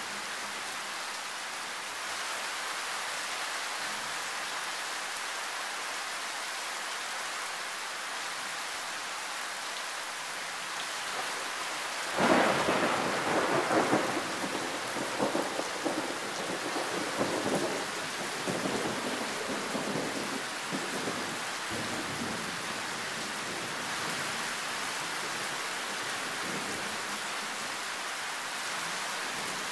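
Heavy rain falling steadily. About twelve seconds in, a sudden loud crack of thunder breaks out, then rumbles and crackles on and off for around nine seconds before it fades back under the rain.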